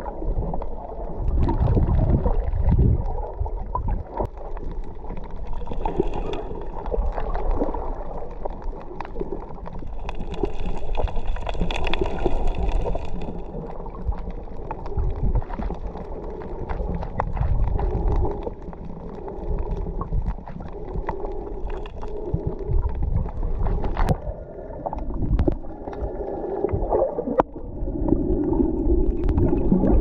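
Underwater sound heard through a camera's waterproof housing: muffled, continuous water rushing and gurgling, with scattered sharp clicks throughout. It swells louder near the end.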